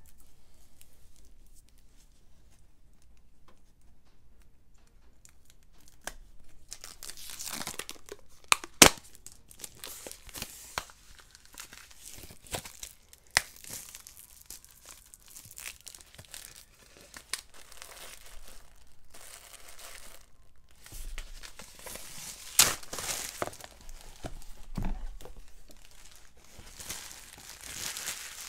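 Plastic wrapping crinkling and tearing as board game map tiles are unpacked, with sharp clicks and taps. It is fairly quiet for the first few seconds; the loudest snap comes about nine seconds in.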